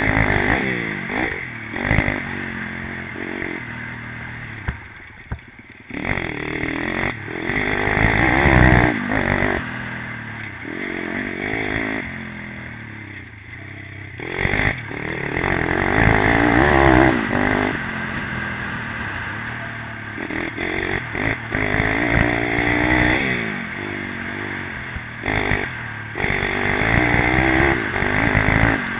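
Pit bike engine revving hard, recorded from on the bike itself: its pitch climbs and falls again and again as the rider opens and shuts the throttle through the turns, easing off briefly about five seconds in and again about halfway through.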